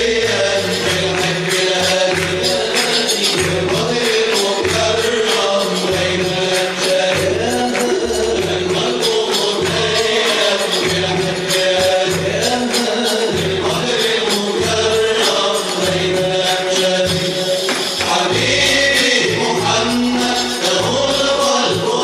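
An inshad ensemble chanting an Arabic madih together, accompanied by frame drums and tambourine keeping a steady beat.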